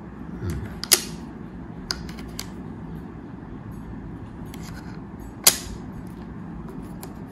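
Steel precision screwdriver bits clicking against the magnetic metal case and tray of a Xiaomi Wiha 24-in-1 kit as they are handled: two sharp clicks, about a second in and again about four seconds later, with a few lighter ticks between, over a steady low background noise.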